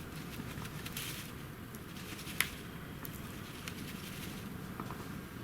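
Snow being trampled and cleared by hand: scattered crunches and clicks, the sharpest about two and a half seconds in, over a steady hiss.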